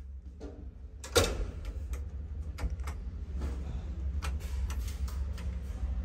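Small elevator car's door and buttons: one sharp clunk about a second in, then a series of light clicks as the buttons are pressed, over a low steady hum.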